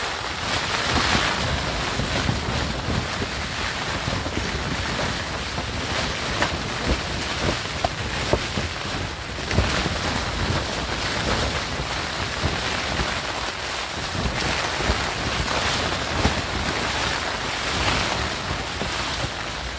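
Storm wind gusting and rushing with rain, buffeting the microphone in a steady loud roar that swells and eases, with scattered sharp taps and snaps through it.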